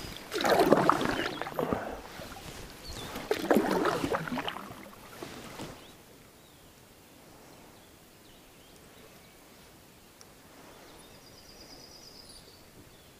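Two canoe paddle strokes swishing through the water, each lasting a second or two, then only a faint steady background as the canoe glides.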